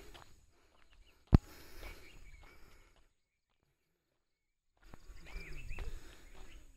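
Outdoor ambience with one sharp knock about a second in and low scuffing noise; the sound drops out completely for about a second and a half in the middle, then returns with scuffing and a few short calls near the end.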